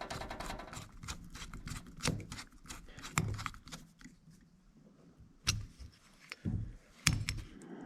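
Small metal carburetor parts and hand tools being handled on a workbench during reassembly: a run of quick clicks and light taps, then a brief lull and three sharper knocks near the end.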